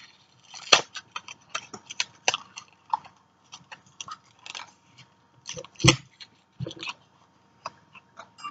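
Small cosmetic packages being handled and rummaged through: an irregular string of small clicks and crinkles, with one louder knock about six seconds in.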